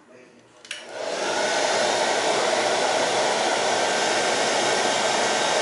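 Hot-air gun switched on with a click, then blowing a steady rush of air to shrink heat-shrink tubing over a resistor's leads.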